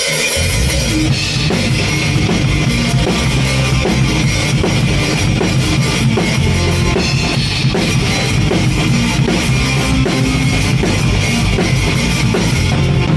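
Rock band playing live, instrumental with no singing, the drum kit to the fore: steady kick drum and cymbals over the band.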